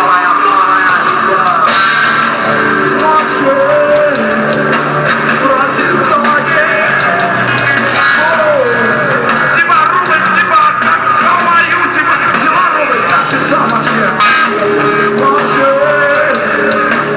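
Loud rock music with guitar and a singing voice.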